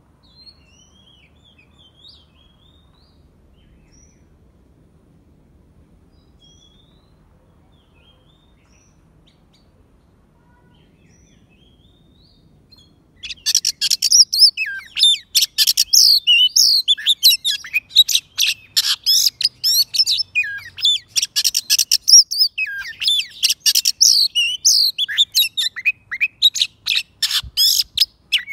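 Oriental magpie-robin, a caged decoy, calling in a dense, rapid run of loud, sharp, varied notes starting about halfway through, with short breaks. Before that there are only faint, scattered distant chirps.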